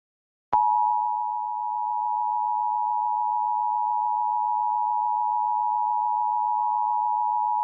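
Emergency Alert System two-tone attention signal, 853 Hz and 960 Hz sounded together as one steady electronic tone. It starts suddenly about half a second in and marks the start of an EAS alert, here a Required Monthly Test.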